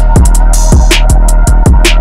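Loud electronic background music with a regular kick-drum beat, crisp high-hat-like ticks and a deep, steady bass.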